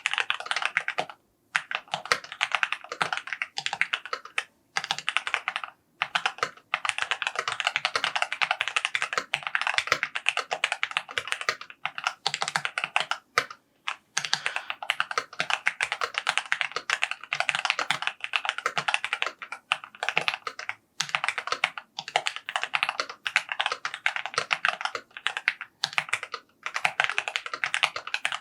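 Fast, continuous typing on a mechanical keyboard: rapid keystroke clicks, broken by a few brief pauses.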